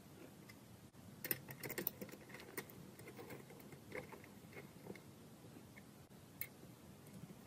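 Light metallic clicks and taps of an Allen key working socket-head cap screws on a small Stirling engine's metal frame, a quick run of clicks about a second in, then scattered single ones.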